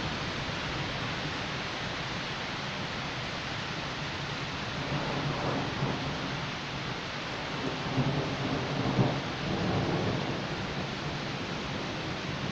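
Steady hiss of rain with low rumbles of thunder swelling and fading from about five to ten seconds in.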